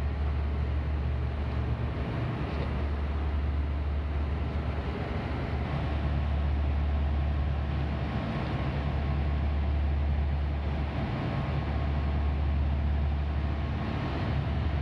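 Flood pumping station's pumps running, a steady low drone under a constant wash of noise, as they push floodwater out through large discharge pipes.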